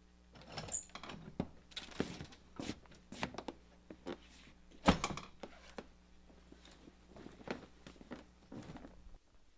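Handling noise of a person coming in through a wooden door and taking off a leather jacket: irregular clicks, knocks and rustling, with one loud thump about five seconds in.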